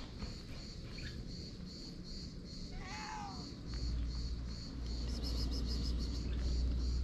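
A black-and-white cat gives one short meow about three seconds in, over insects chirping in a steady high pulse, about three a second. A low rumble comes in about halfway.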